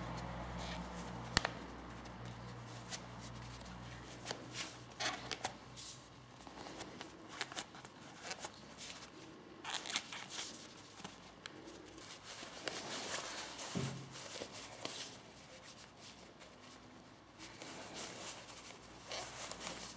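A plastic trim tool scraping and clicking against a leather gear gaiter and its plastic frame as the leather edge is tucked in, with handling rustle of the leather. The short scrapes and clicks come irregularly, with one sharp click about a second in.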